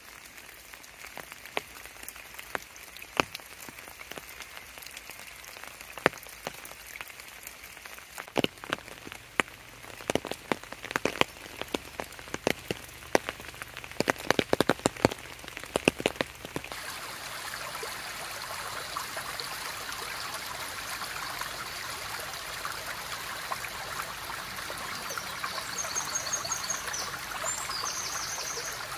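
Raindrops dripping and pattering as scattered single drops, thickening for a while. About halfway through, a small stream running takes over as a steady rush of water, with a bird giving short, high, repeated notes near the end.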